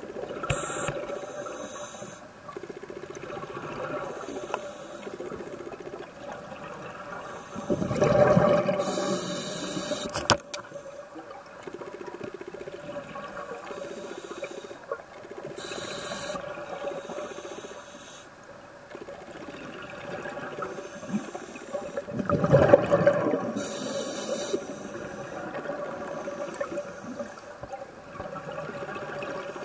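Scuba breathing heard underwater through a regulator: twice a loud rush of exhaled bubbles, about eight and twenty-two seconds in, with shorter hissing breaths between them over a steady low hiss.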